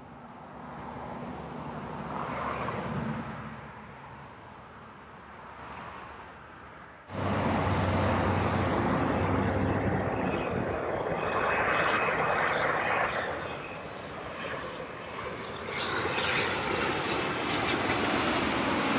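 Airliner engines during a landing: a steady rushing noise, moderate at first, then abruptly much louder about seven seconds in and staying loud with a deep rumble.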